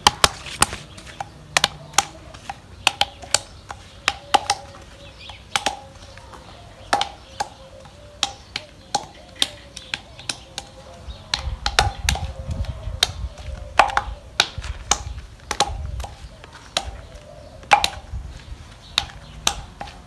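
Sharp knocks at irregular intervals, about one or two a second, as ripe olives are struck one by one to crack them. They split at the first blow, which is taken as the sign of a good oil content.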